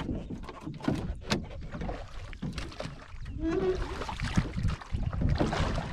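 Water splashing and lapping with scattered knocks and rustles as a gill net is hauled by hand over the side of a small wooden boat.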